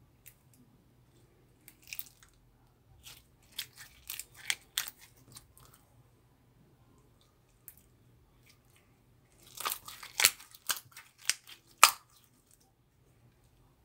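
Slime being squeezed and pressed by hand, giving crisp crackling and popping sounds in two bursts, the louder one near the end.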